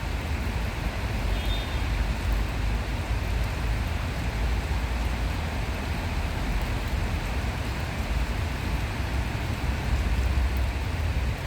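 Steady outdoor rushing noise with a heavy low rumble, even throughout, and a brief faint high chirp a little over a second in.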